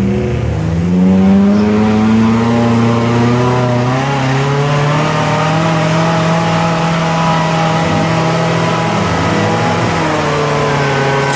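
Suzuki Jimny's engine revving up over the first couple of seconds and held at high revs under load off-road, then easing off near the end.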